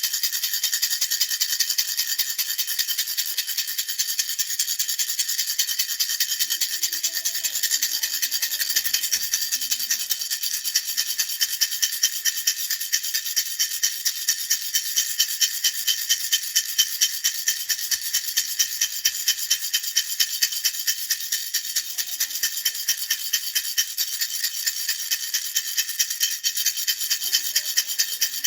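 Baby rattle shaken continuously in a steady rhythm, a bright beaded rattling like a maraca, with accents a couple of times a second.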